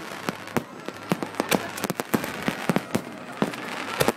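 Fireworks going off close by: a rapid, irregular string of sharp bangs and crackles, several a second.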